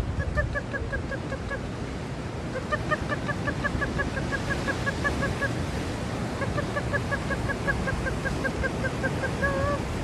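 A gull calling in quick runs of short clipped notes, about seven a second, three runs in all, then one longer wavering call near the end. Wind and surf hiss underneath.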